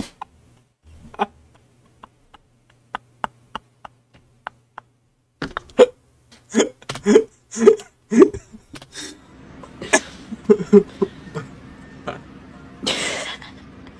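A man laughing hard and breathlessly: a string of short, hiccup-like gasps and squeaks, then louder bursts of laughter about halfway through. A steady low hum comes in after that, with a brief hiss near the end.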